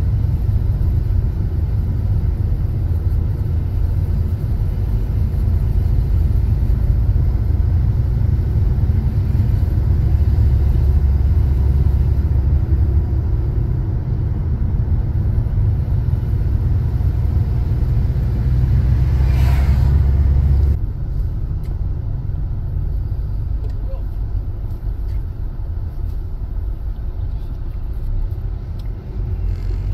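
Steady low road and engine rumble heard from inside a moving car. It steps down in level about two-thirds of the way through as the car slows toward a roundabout.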